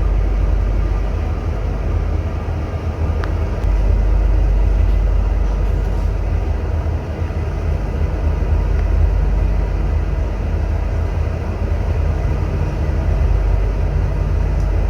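Passenger lift travelling upward: a steady, low rumble and hum from the moving cab.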